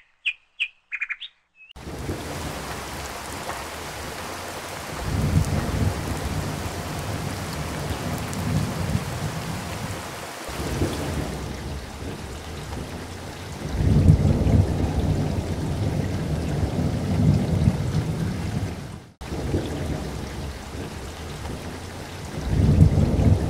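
Steady rain falling, with low thunder rumbles swelling and fading three times. A few short high chirps come before the rain starts.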